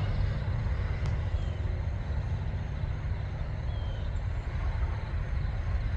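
Steady low rumble, with a short faint falling chirp every two seconds or so.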